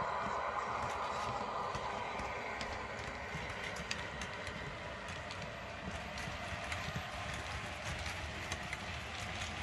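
Model freight train rolling past: the wheels of the container wagons click irregularly over the track joints. The electric-locomotive sound of the sound-fitted Bachmann Class 90 model fades over the first few seconds as it moves away.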